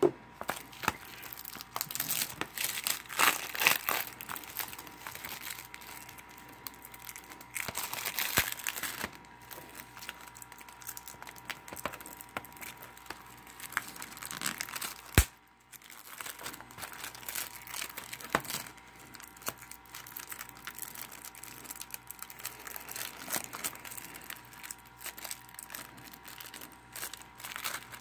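Plastic shrink-wrap being picked at, torn and peeled off a DVD case by hand: irregular crinkling and crackling, with a couple of sharp clicks.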